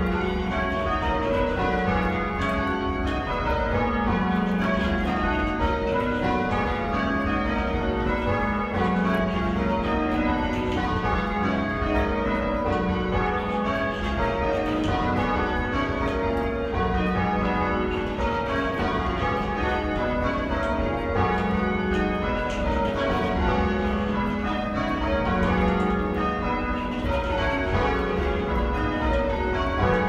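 Church tower bells being change-rung with full-circle ropes, heard from the ringing chamber below: a continuous, even sequence of bell strikes, each bell sounding in turn and their tones overlapping.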